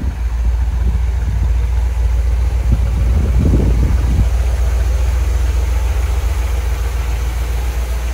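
1963 Corvette's 327 V8 idling steadily with a low, even rumble, at its first start after sitting for at least four years.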